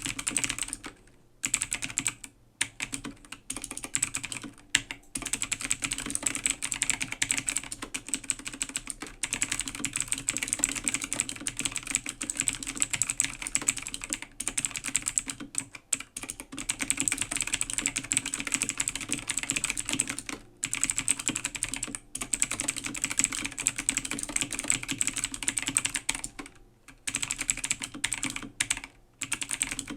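Full-size A2 AG0302 mechanical gaming keyboard with clicky blue switches being typed on fast: a dense stream of key clicks, broken now and then by short pauses.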